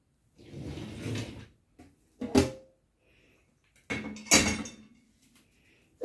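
Dishwasher wire racks rolling along their rails, then a sharp clunk a little over two seconds in and a louder rattling clatter with a ringing edge a couple of seconds later, as the racks are shoved in and knocked into place.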